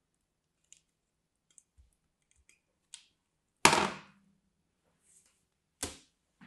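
Faint crackles of a soap cube being pressed through a plastic grid cutter's blades. Then a loud sharp crack about three and a half seconds in, with a short rumbling tail, and a second, quieter crack near the end.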